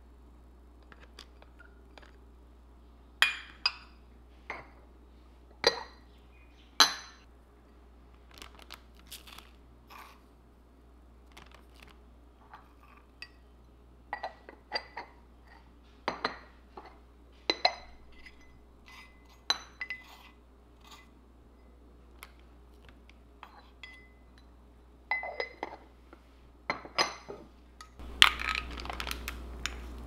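Light clinks and taps of a utensil against small ceramic dishes, some ringing briefly, as grated ginger and crushed garlic are scraped into a zip-top bag of chicken. A louder cluster of clinks comes near the end.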